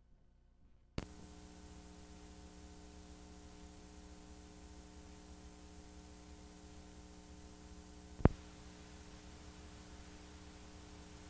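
Blank VHS tape playing past the end of the recording: a click about a second in, then steady tape hiss with a low mains hum. A single sharp pop cuts through about eight seconds in.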